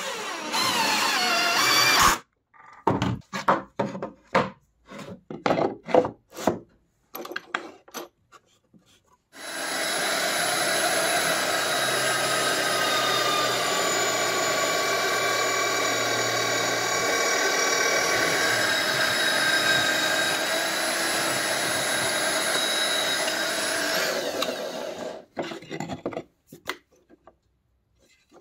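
A cordless drill driving a screw into plywood, followed by a string of short sounds. Then a drill press bores a hole in film-faced plywood with a Forstner bit, running steadily for about fifteen seconds before stopping.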